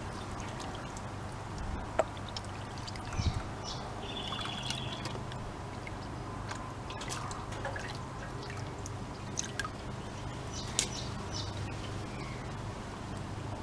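Water dripping, trickling and sloshing as a plastic gold pan is dipped into and lifted out of a tub of water while panning concentrates, with small splashes and clicks now and then. A faint steady low hum sits under it.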